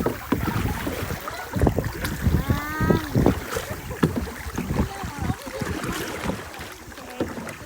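Kayak paddling on a river: irregular paddle knocks and water splashes with wind buffeting the microphone, and one brief high call about two and a half seconds in.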